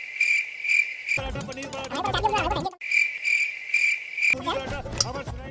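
Cricket chirping sound effect, a steady high pulsing trill, cut in twice and broken off abruptly each time: the comedy cue for an awkward silence. Between the two stretches of trill comes a short wavering, pitched sound.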